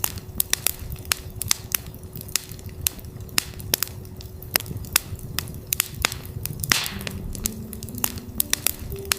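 Campfire crackling with frequent sharp pops over a low steady rumble of burning wood, with a steady 369 Hz sine tone held underneath. A few soft ambient synth notes come in near the end.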